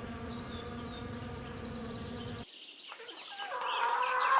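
A wasp's wingbeat buzzing as a steady, even hum that cuts off suddenly about two and a half seconds in. Chicks then start peeping, in quick high chirps that grow louder toward the end.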